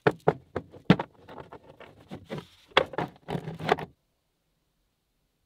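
Steel bicycle roller chain clinking and rattling against itself and a wooden workbench as it is wiped down with a rag, in irregular sharp clicks. The sound cuts off abruptly about four seconds in.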